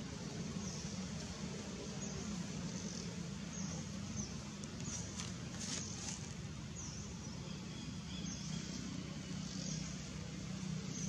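Outdoor ambience: a steady low hum with a faint high chirp repeating about every second and a half.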